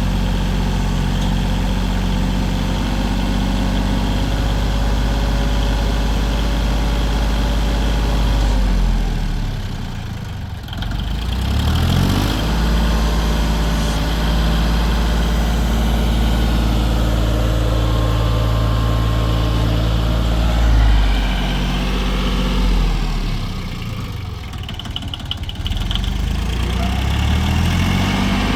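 John Deere 850 tractor's three-cylinder diesel engine running steadily. Its speed drops twice to a lower note and then picks back up, once about a third of the way in and again about three quarters of the way in.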